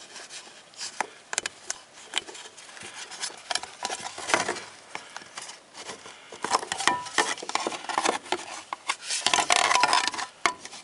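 Hands working a wiring connector and its rubber grommet in a fuel pump access cover, with rubbing, scraping and light clicks and knocks. These come more often and louder in the second half.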